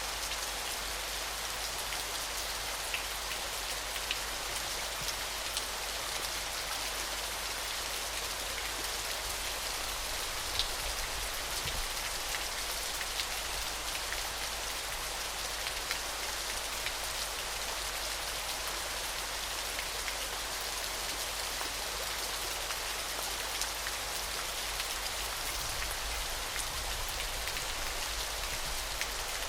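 Waterfall: an even, steady hiss of falling water with fine spattering, strongest in the higher register, and a few small splashes standing out now and then.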